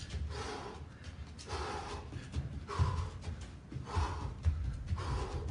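A man breathing hard from exertion while shadowboxing, with a loud breath about once a second. Under the breathing are soft low thuds of his footwork on the ring floor.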